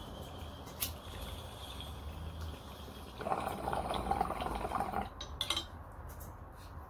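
Water bubbling in a small glass bong as smoke is drawn through it, for about two seconds in the middle, with a few light clicks before and after.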